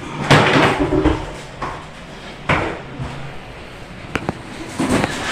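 Objects being handled and set down in a small room: a loud clatter in the first second, a sharp knock about two and a half seconds in, then two quick sharp clicks and another knock near the end.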